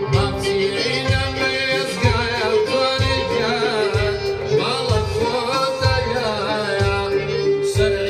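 Kurdish folk song performed live: a male singer on a microphone, singing with vibrato, backed by two violins, an oud, a keyboard and a zither over a steady low beat.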